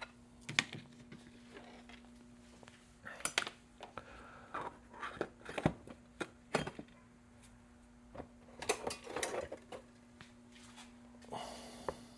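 Small items being handled on a workbench: scattered light clicks, knocks and rustling as things are picked up and set down, over a faint steady hum.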